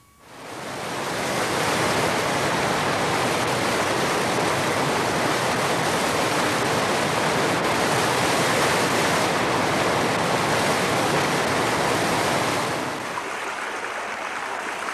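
Steady rushing water, fading in at the start and dropping a little in level near the end.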